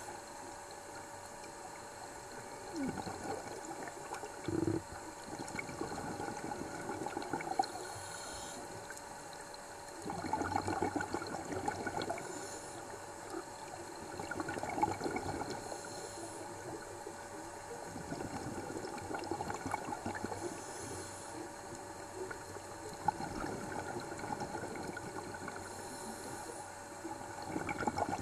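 Scuba regulator exhaust bubbles heard underwater, a gurgling burst with each of a diver's out-breaths, coming about every four to five seconds. A faint steady tone and water hiss run beneath.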